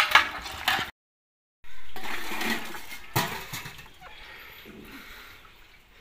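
Steel utensils clanking and water splashing into a steel washing tub under a running tap, cut off abruptly about a second in. After a short gap, handling noise and a sharp knock about three seconds in, then faint background.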